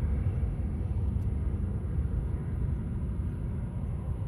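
Cessna Citation's twin jet engines at climb power as the jet departs, a deep steady rumble that slowly fades as it climbs away.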